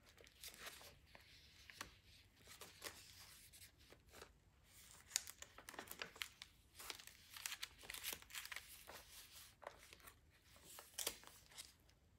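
Paper pages, tags and pockets of a handmade journal rustling and crinkling as they are turned and handled: soft, irregular swishes with a few sharper paper snaps.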